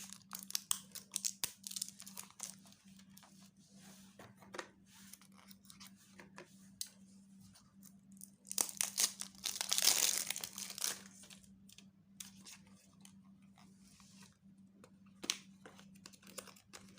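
Packaging being unwrapped and handled by hand: scattered clicks and rustles, with a louder stretch of tearing and crinkling about nine to eleven seconds in. A faint steady low hum sits underneath.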